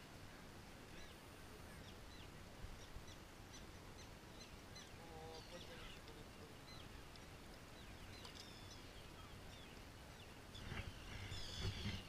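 Faint birds calling: scattered short, high chirps and a few brief calls over a light steady background hiss, growing louder near the end.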